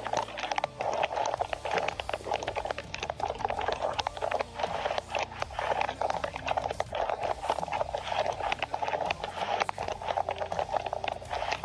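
Heavy rain falling steadily, a dense continuous crackle of drops striking a hard surface.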